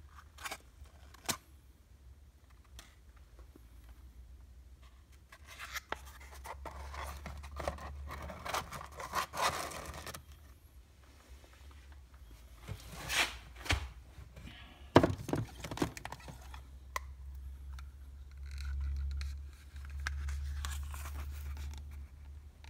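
Cardboard eyelash boxes being handled: scraping and rustling as boxes are moved and lids are opened, with several sharp clicks and taps.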